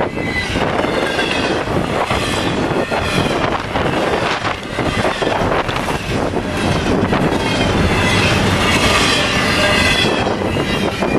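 Double-stack intermodal container cars of a long freight train rolling past at track speed: a steady, loud rumble of steel wheels on rail with wavering wheel squeal that rises about a second in and again near the end.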